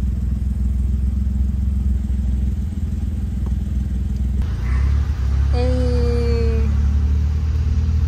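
Steady low rumble of a vehicle's engine and road noise heard inside its cabin, moving slowly in a queue; it gets louder a little past halfway. Just after that a single held tone sounds for about a second, dropping slightly in pitch.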